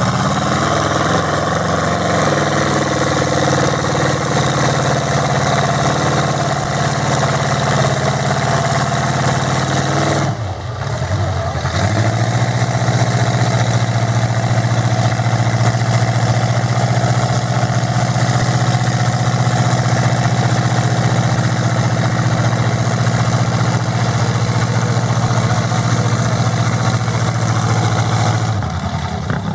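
Mud truck engine running loud and steady at high revs. It drops off briefly about ten seconds in, then comes back and holds a steady, strong pitch.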